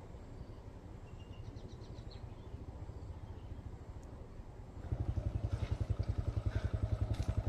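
A small engine running with a steady, rapid beat, getting clearly louder about five seconds in.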